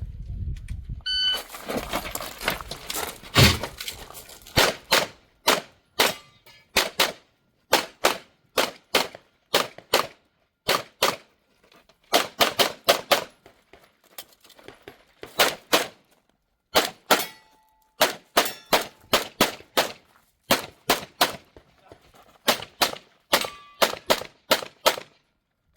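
Shot timer beeps about a second in, then a Grayguns P320 pistol is fired in quick pairs and fast strings, dozens of shots in all, with steel targets ringing when hit.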